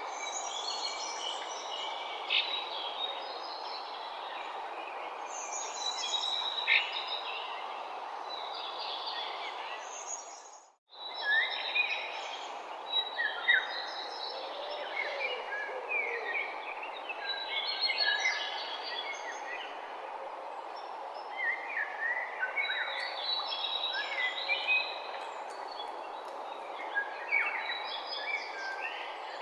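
Dawn chorus: several birds chirping and trilling over a steady background hiss. The sound cuts out briefly about eleven seconds in, then resumes.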